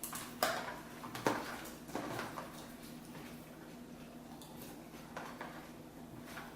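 Spoons clicking and knocking against cereal bowls, four or five times in the first two seconds, then quieter.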